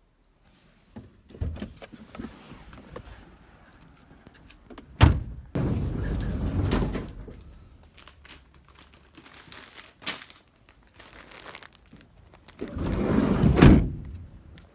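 Handling noise: two sharp knocks about five and ten seconds in, and stretches of rustling, the longest near the end.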